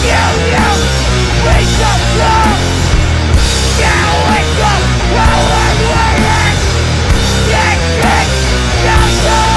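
Loud rock music with distorted guitars, strong bass and a singing voice, in a punk or heavy-metal style.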